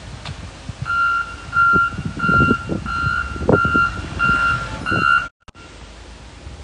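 Reversing alarm on heavy equipment, beeping steadily about seven times at roughly one and a half beeps a second, over low rumbling thuds. The beeping stops just after five seconds in.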